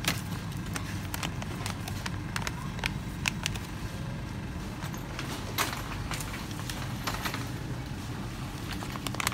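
Supermarket background: a steady low hum with scattered, irregular sharp clicks and knocks.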